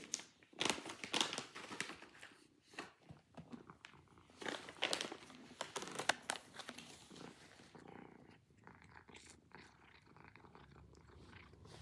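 A domestic cat purring, with loud bursts of rustling and crinkling over the first seven seconds or so, then quieter.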